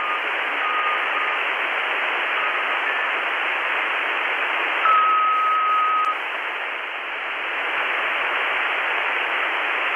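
Radtel RT-860 handheld receiving 27.555 MHz CB on upper sideband with no one talking: steady hiss of band noise through its small speaker. Short steady whistle tones come and go, with a longer one about five seconds in.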